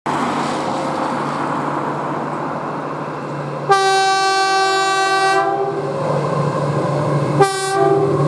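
A locomotive passing with a steady rumble of engine and train. About three and a half seconds in, its air horn sounds one long blast of nearly two seconds, and a short second blast follows near the end.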